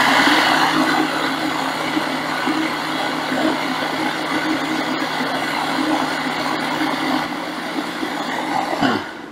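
Electric countertop blender running steadily, whirring a thin garlic, milk and mayonnaise mixture while olive oil is slowly drizzled in through the lid to emulsify it into garlic sauce. The motor stops near the end.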